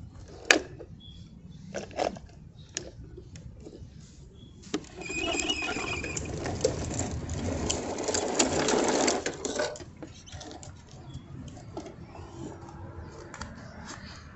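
Plastic toy garbage trucks being handled: scattered clicks and knocks, then about five seconds of dense rattling, whirring noise before it drops back to light clicking.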